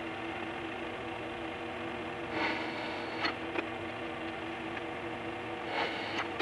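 Bench drill press motor running with a steady hum. There are two short louder rasping noises, about two and a half seconds in and near the end, and a few sharp clicks. The sound drops off suddenly at the very end.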